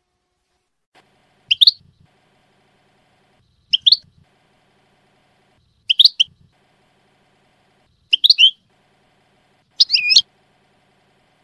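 European goldfinch giving short, high chirping phrases, five times about two seconds apart, the last one a little longer.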